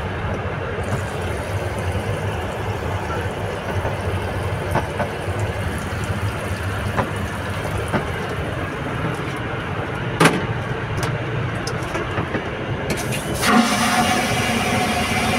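Steady in-flight cabin drone of an Airbus A330, the low rumble of engines and airflow heard inside the lavatory, with a sharp click about ten seconds in. Near the end a hiss and a steady hum come in on top.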